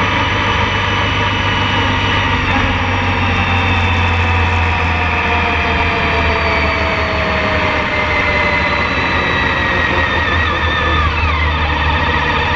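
Engine and road noise from a moving vehicle carrying the camera, with a steady low hum. A whine in the engine sound falls slowly in pitch and then drops sharply near the end.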